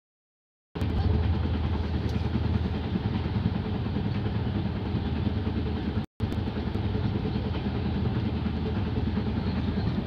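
Steady rumble of a moving train heard from inside the carriage, starting just under a second in and cutting out for an instant about six seconds in.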